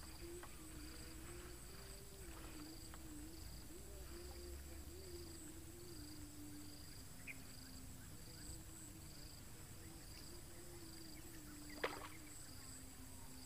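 Faint chorus of insects: a steady high trill and a second high chirp that pulses on and off regularly, over a low hum that wavers in pitch. One sharp click near the end.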